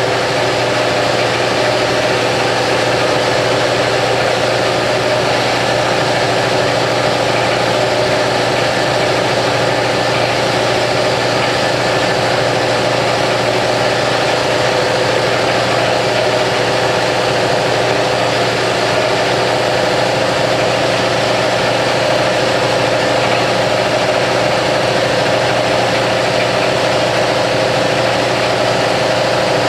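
Hydraulic press's electric pump motor running steadily: an even hum with a whine above it, unchanging throughout.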